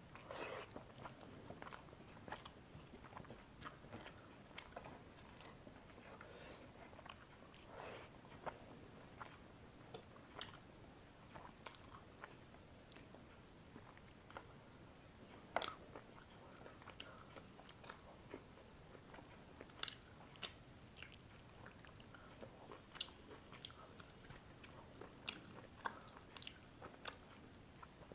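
A person chewing and biting food close to the microphone, with irregular sharp clicks.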